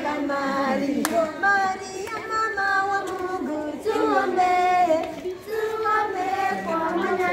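A group of children singing a song together in held, melodic phrases, with one sharp clap about a second in.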